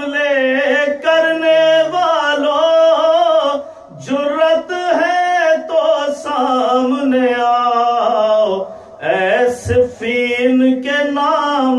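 A man's voice reciting in a melodic, sung chant into a microphone: long held notes in phrases, with short breaks about four and nine seconds in.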